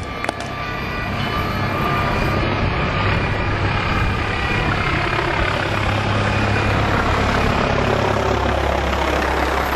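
Aircraft engine running close by. It grows louder over the first two seconds, then holds steady, and its pitch drops slightly near the end as it passes.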